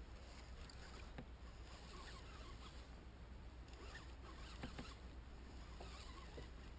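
Faint water lapping against a plastic kayak hull, with scattered small clicks and knocks from a fishing rod being handled in its holder; the sharpest knock comes a little past halfway.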